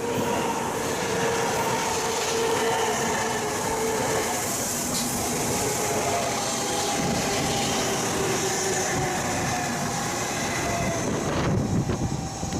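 Shinkansen train moving along the platform: a steady rush of running noise with a faint whine of a few held tones, the lower ones sinking slightly, easing off near the end.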